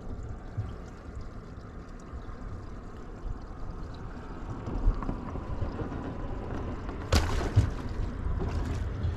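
Wind and water noise on a fishing boat, a steady low rumble, with a sharp knock about seven seconds in and a lighter one just after.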